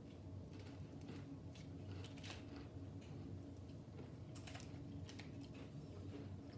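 Faint, irregular crackles and clicks from a pilot bread cracker being handled and broken or bitten, over a steady low hum.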